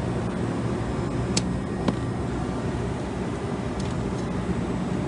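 Steady low hum of running rooftop refrigeration and air-conditioning equipment, with two light clicks about one and a half to two seconds in.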